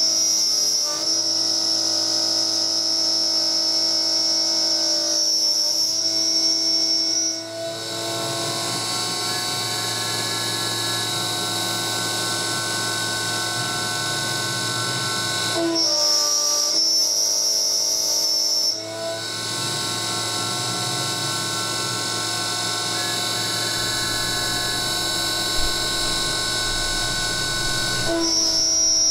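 End mill cutting 6061-T6 aluminium under flood coolant, spun by an old brushless DC spindle motor that tops out at 3300 rpm: a steady machining whine made of several fixed tones. A shrill high tone sounds for the first seven seconds, returns briefly past the middle and again near the end; between these stretches the cut sounds fuller and lower, and the level dips briefly as it changes.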